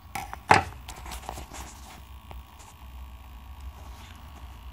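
Handling clicks and knocks of tools or the camera on a stone workbench, the loudest a sharp clunk about half a second in, then a few faint ticks over a steady low hum.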